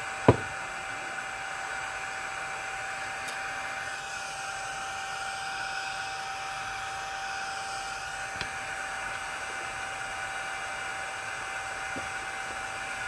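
Small electric fan running steadily with a constant hum over an airy hiss. A single sharp click comes about a quarter second in. The fan's hiss shifts briefly a few seconds in, as a hand handles the fan.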